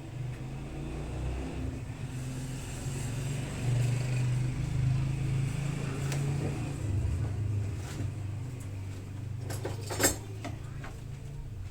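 A motor running steadily with a low hum, its speed shifting partway through, with a short clatter of hard parts about ten seconds in.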